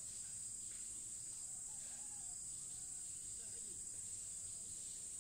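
Steady, high-pitched drone of forest insects, unbroken throughout, with a few faint short calls lower in pitch.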